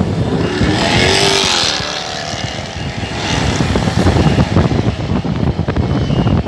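Minibus taxi driving in city traffic: steady engine and road rumble, with wind buffeting through the open side window. A brief rush of noise comes about a second in.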